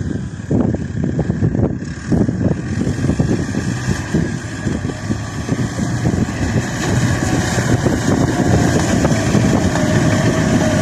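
Blizzard wind buffeting the microphone in irregular gusts over the steady rumble of a running tractor engine.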